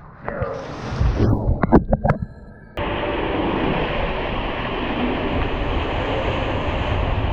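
Rider's-eye sound of a water slide: a few knocks and rustles, then, a little under three seconds in, a sudden steady rushing rumble of water and the body sliding through the slide tube.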